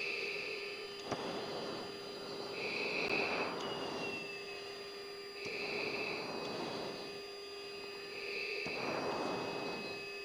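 F-16 cockpit intercom audio: a steady jet and cockpit hum with a thin high tone, and regular breathing through an oxygen mask, one breath about every two and a half to three seconds.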